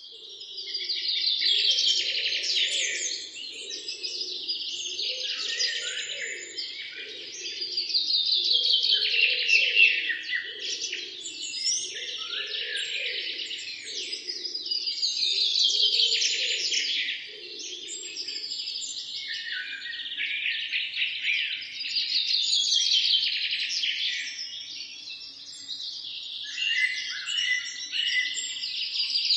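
Many small birds chirping and singing at once in a dense chorus of rapid trills, swelling and easing about every seven seconds. A lower, pulsing call runs underneath and stops about two-thirds of the way through.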